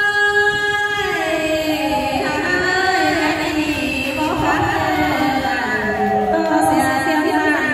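A woman singing a Tai (Thái) folk song into a microphone, amplified through loudspeakers: a long held note, then a sliding, wavering melody from about a second in.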